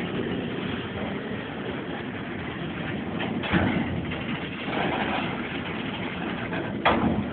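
Iron ore freight train rumbling steadily, with a loud clank about halfway through and another sharp clank near the end, recorded on a mobile phone.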